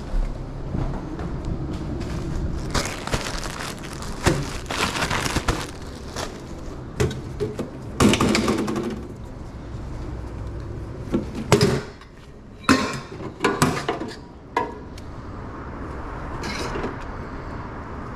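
Food-prep clatter at a stainless-steel hot dog steam table: irregular knocks and clinks of a metal fork and lids against the steel wells, with a quick run of sharp clicks about two-thirds of the way through.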